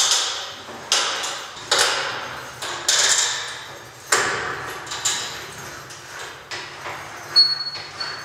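Drywall lift's hand winch being cranked to raise a gypsum board toward the ceiling: sharp clicks and clunks about once a second, each ringing out briefly in a bare, echoing room.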